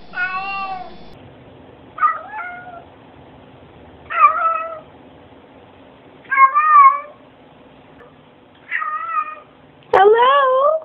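Domestic cats meowing: one meow at the start, then a second cat gives five meows about two seconds apart, the last one the loudest.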